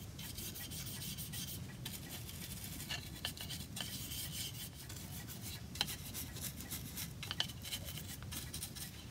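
A bristle brush scrubbing stain polish onto a pierced oak fret: a continuous scratchy rubbing of the bristles on the wood, with a few sharper ticks as the brush catches the edges.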